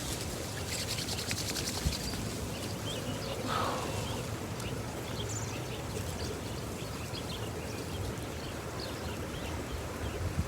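Wind on the microphone, a steady low rumble, with small birds chirping faintly here and there.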